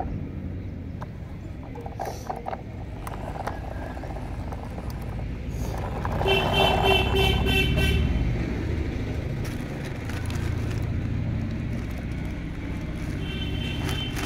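A horn toots for about two seconds, a little past the middle, with a shorter, fainter toot near the end, over a steady low rumble and a few light clicks.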